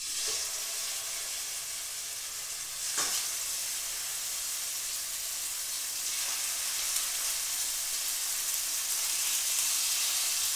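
Seasoned chicken breasts sizzling in hot olive oil in a skillet as the pieces are laid in one after another with tongs: a steady high hiss with a brief louder crackle about three seconds in, growing slightly louder toward the end.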